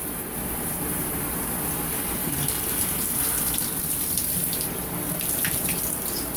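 Shower water running steadily, splashing on a dirty vacuum-cleaner filter sponge as it is rinsed under the spray.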